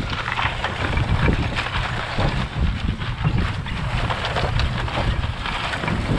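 Wind buffeting the microphone over the low rumble and rattle of a vehicle driving across rough pasture, towing a chain-link fence as a manure drag. The rattle runs as a steady stream of short ticks.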